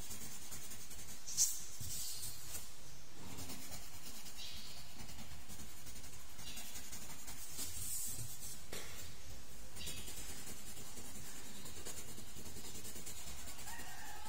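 Colored pencil scratching on paper in short shading strokes that come and go over a steady hiss, with one sharp tick about a second and a half in.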